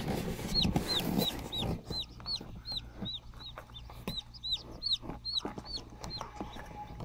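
Newly hatched chicken chicks peeping in an incubator: short, high, arched peeps, about three a second, with a soft rustle in the first couple of seconds.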